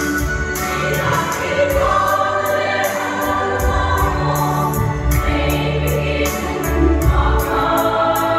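A large women's choir singing a Christian hymn together over sustained low bass notes.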